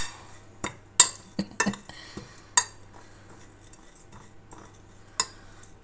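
Metal spoon stirring a damp mix of salt, grated citrus zest and herbs on a plate, with irregular sharp clinks and scrapes against the plate. The clinks are thick in the first three seconds, then pause, and one more comes near the end.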